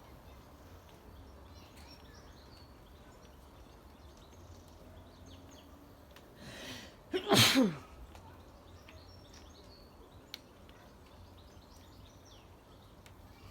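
A person sneezes once, about seven seconds in: a short breathy intake, then a loud burst whose voiced part falls in pitch.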